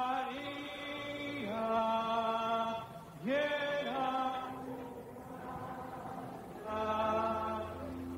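Choir singing a slow liturgical chant in long, held notes.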